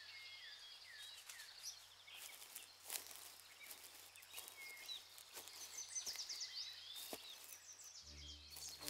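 Small birds chirping and singing faintly, with a few soft clicks. Music comes in near the end.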